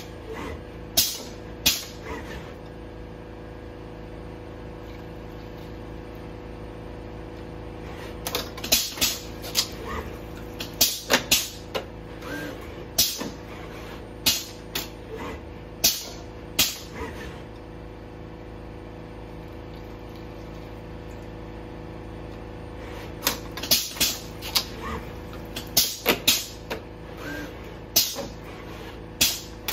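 Robot arm running with a steady hum, with sharp clicks and clacks as its gripper picks up and sets down cups and lids. The clicks come in two busy spells, the first from about a third of the way in and the second near the end.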